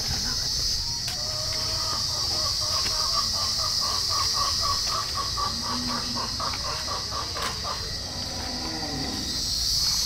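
Steady high-pitched drone of insects. Over it, an animal gives a rapid pulsing call at about three to four pulses a second for several seconds, with a couple of lower calls near the end.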